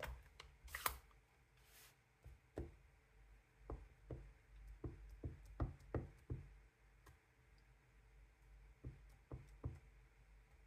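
Clear stamp on an acrylic block being tapped again and again onto a dye ink pad to ink it, as a string of soft, irregular knocks. A few sharper clicks come in the first second.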